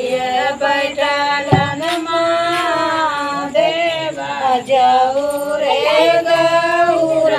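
Women singing a traditional devotional folk song of the Jitiya fast, with long held notes. A short knock about one and a half seconds in.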